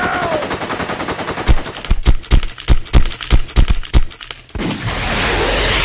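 Sound-effect gunfire for a toy robot's cannon: a fast machine-gun rattle, then about ten loud single shots over some three seconds. Near the end a hissing rush of noise takes over.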